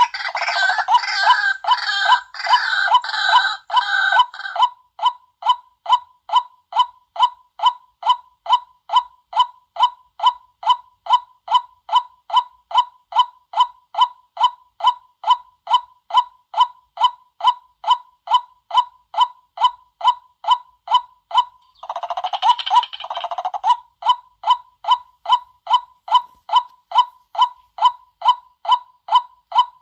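White-breasted waterhen calls played as a lure call: a monotonous 'kwak' note repeated about twice a second, with a harsher, denser chattering chorus over the first four seconds and again briefly about 22 seconds in.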